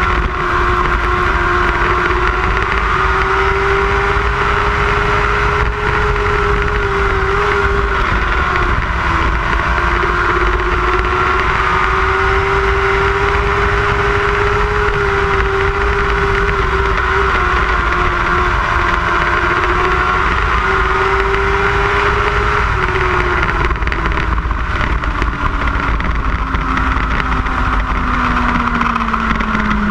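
Lightning sprint race car engine running at high revs, its pitch dipping briefly a few times, then falling steadily near the end as the car slows.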